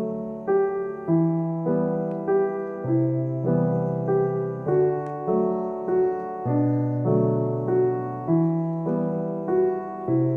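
Background piano music: a gentle, evenly paced melody of single notes over held chords, about two notes a second.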